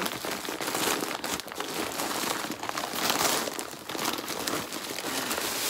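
Paper and plastic parcel packaging crinkling and rustling as it is handled and unwrapped by hand, with many small crackles throughout.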